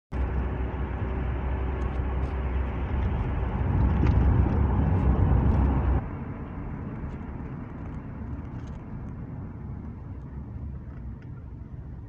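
A car driving on a city road, heard from inside: a steady low rumble of engine and tyres. It grows louder toward the middle, then drops abruptly about halfway through to a quieter rumble.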